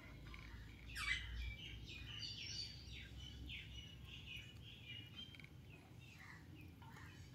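Caged Alexandrine parakeet giving soft, quick chirps: a string of short calls and down-slurred notes that starts about a second in and thins out toward the end.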